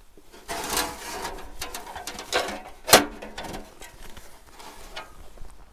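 A snow scraper rasping across the van in several rough strokes while snow and ice are cleared off it, with a sharp knock about three seconds in.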